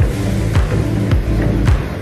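Background music with a steady beat of a little under two beats a second, over a low bass line.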